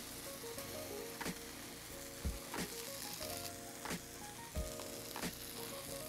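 Mushrooms and tomatoes sizzling in butter in a frying pan, with a few sharp knocks of a utensil as they are lifted out to plate. Soft background music with held notes runs underneath.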